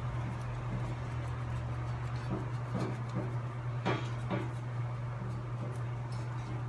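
Gas blowtorch flame burning steadily as silver solder is fed onto a heated copper pipe joint, with two faint clicks about four seconds in.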